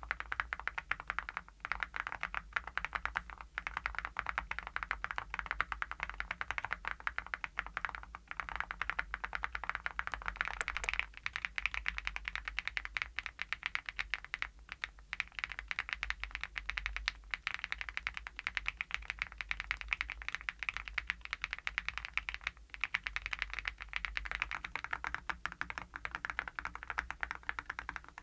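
Continuous fast typing on a mechanical keyboard fitted with full metal keycaps, dense clacking keystrokes. About ten seconds in it changes to typing on plastic keycaps for comparison, and near the end to typing on a second keyboard.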